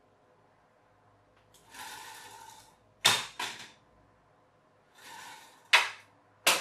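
Small plastic helicopter with a rubber-band-driven propeller, handled in the hands. There is a soft rustle about two seconds in, then two sharp clicks close together about three seconds in. Near the end come another brief rustle and two more loud clicks.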